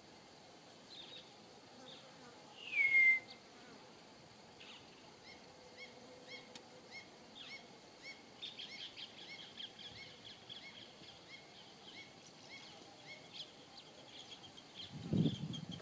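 Wild birds calling: a loud falling whistle about three seconds in, then a run of short high chirps, evenly spaced at first and turning into a busier chatter in the second half. A low thump near the end.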